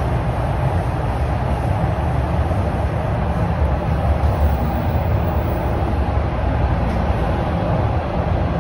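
Toronto Rocket subway car running through a tunnel between stations, heard from inside the car: a steady low rumble of wheels on rail and running gear.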